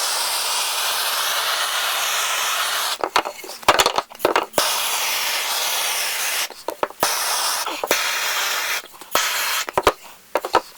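Handheld blowtorch flame hissing steadily as it scorches the wood to darken it. The hiss breaks off several times, with a few light knocks and clicks in the gaps.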